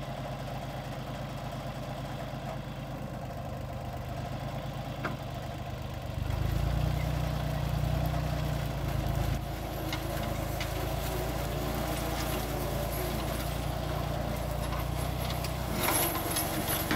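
Compact tractor's engine running steadily as it drives a rear forestry mulcher. About six seconds in the engine note swells louder for about three seconds, then settles back, with crackling near the end.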